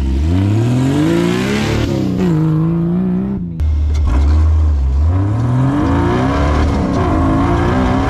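An off-road race vehicle's engine accelerating, its pitch climbing for about two seconds and then holding. After a sudden break near the middle it runs at a low steady note, then climbs again and holds.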